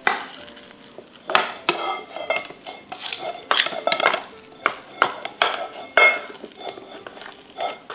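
A spoon scraping sticky sourdough starter dough out of a stainless steel bowl into a glass mixer bowl: a run of irregular scrapes and clinks of metal on metal and glass, some with a brief ring.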